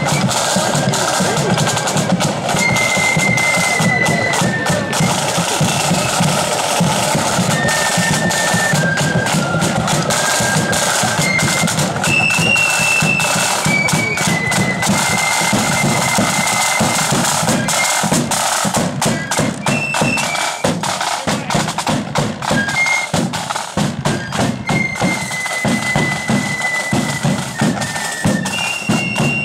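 Marching flute band playing a tune: a high flute melody over rapid snare-drum beats and a bass drum.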